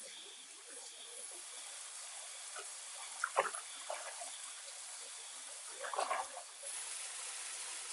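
Water splashing briefly twice, about three and six seconds in, over a steady background hiss.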